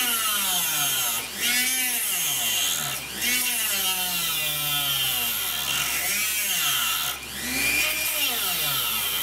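Dremel rotary tool with a diamond cutting wheel sawing lengthwise down a wooden chopstick. Its whine rises and falls in pitch several times, over a gritty cutting hiss.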